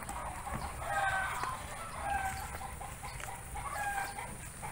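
Chickens clucking: a few short calls spaced about a second apart, over a low rumble.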